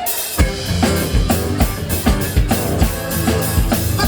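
Hip-hop backing track playing: a steady drum-kit beat with kick, snare and bass, no vocals.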